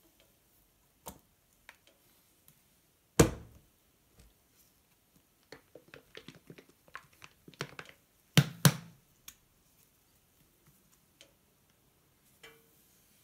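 Plastic squeeze bottles of pancake batter being handled and set down on the table: one loud knock about three seconds in, a run of small clicks and taps, then two sharp knocks in quick succession past the middle, with a few faint ticks.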